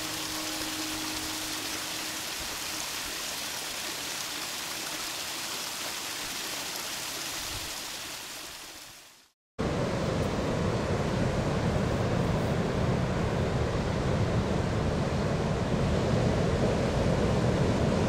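Water falling and splashing over a small rock waterfall, a steady hiss that fades out about nine seconds in. After a moment of silence comes surf breaking on a beach, a steady, deeper and louder wash of waves.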